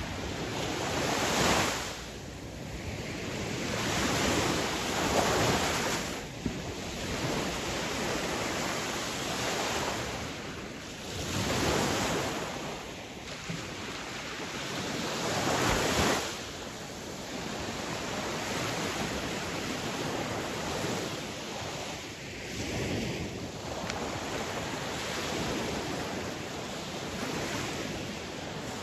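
Sea waves breaking and washing ashore, swelling and ebbing every few seconds. The surges are strongest in the first half, then settle into a steadier wash.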